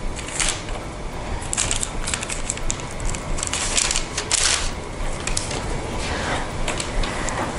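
Parchment paper crinkling and rustling in several short bursts as hands slide wedges of scone dough apart on a lined baking sheet, the loudest burst about halfway through, over a low steady hum.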